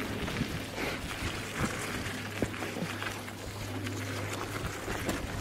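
Off-road electric scooter rolling slowly along a gravel track, its tyres and footsteps crunching on the gravel in scattered short crunches, over a low steady hum.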